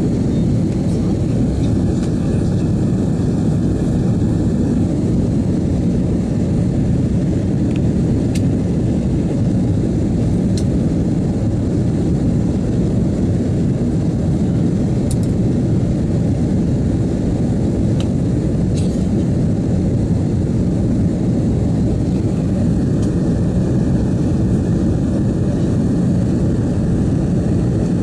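Steady roar of an Airbus A330-200 airliner in flight, engines and airflow heard from inside the cabin. A faint high whine rises out of it for a couple of seconds near the start and again near the end.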